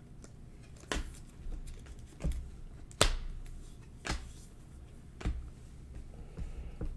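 Glossy Panini Optic trading cards being flicked off a hand-held stack one at a time, a sharp click or snap each time a card comes off, about once a second.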